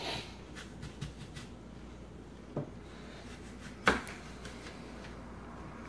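Kitchen knife cutting a lemon on a plastic cutting board: a few scattered knocks of the blade against the board, the loudest about four seconds in.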